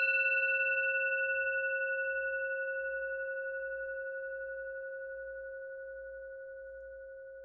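A singing bowl struck once, its tone ringing on with a slight waver and slowly fading away.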